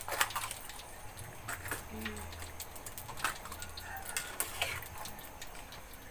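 Hot cooking oil in a wok crackling and popping irregularly, a few sharp pops a second, over a low steady hum.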